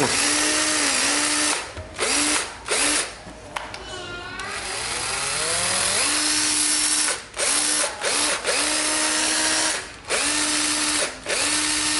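Ryobi 12 V cordless drill-driver running with no load in a series of trigger pulls, about eight in all. Each pull spins the motor quickly up to a steady whine and then cuts off. One run, a few seconds in, winds up slowly as the variable-speed trigger is eased in.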